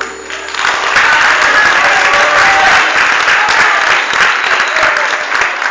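Audience applause breaking out as the band's final held chord ends, filling in within about a second and staying steady.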